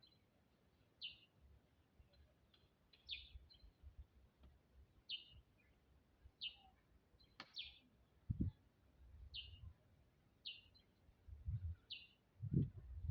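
A single bird chirping repeatedly and faintly, one short high note about every one to two seconds. Low muffled thuds come in the second half, most strongly near the end.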